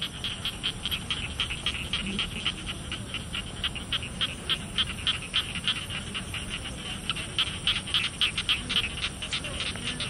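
Rice-paddy evening chorus of frogs and insects: a dense, irregular run of short, quick calls, several a second, over a low rumble.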